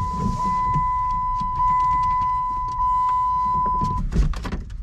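A steady high-pitched electronic beep is held for about four seconds and then cuts off, with a few clicks and knocks near the end. No starter or engine cranking is heard: pressing the push-to-start button gets no response from the starter.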